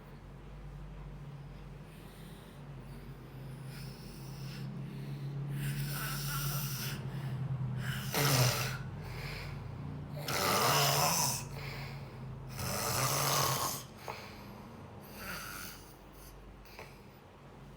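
A person snoring: a low rattling snore builds over several seconds, then four or five loud, noisy breaths come about two seconds apart before it fades back down.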